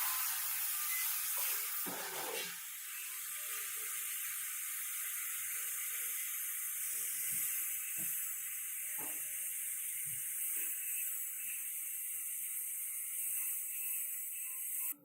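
Steady hiss of compressed air from an air tool in a body shop, running evenly and cutting off suddenly at the end, with faint scattered clicks underneath.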